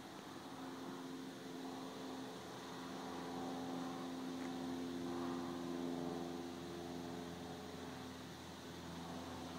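Distant airplane droning overhead: a steady hum that grows louder to a peak around the middle and then eases off a little.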